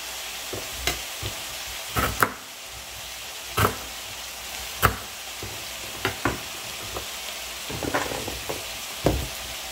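A knife chopping moringa drumsticks on a bamboo cutting board: sharp knocks about once a second, each blade strike hitting the board. Under them, chopped onions sizzle steadily as they sauté in a pan.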